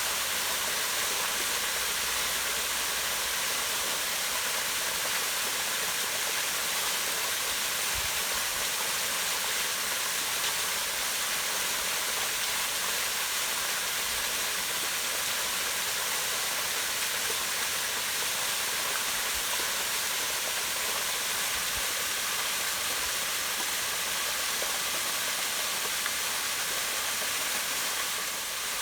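Small waterfall pouring down rocks into a pond: a steady, even splashing hiss that is mostly high-pitched, with little low rumble.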